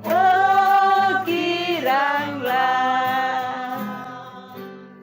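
Voices singing the last line of a children's Sunday-school song, the final note held and fading out near the end.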